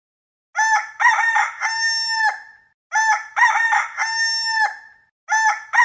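A rooster crowing cock-a-doodle-doo. The same crow is heard twice and starts a third time near the end, each about two seconds long with a long held final note.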